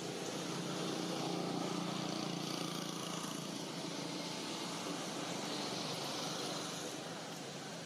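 A distant motor vehicle's engine hum, swelling a little in the first couple of seconds and then easing off, over a steady outdoor background hiss.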